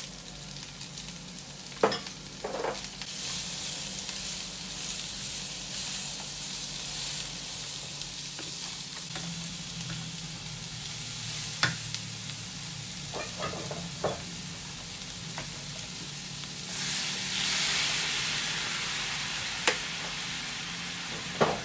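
Daikon radish, carrot and pork belly sizzling in a hot non-stick pan while being stirred with a wooden spatula, which knocks against the pan several times. The sizzle swells louder for a second or two near the end.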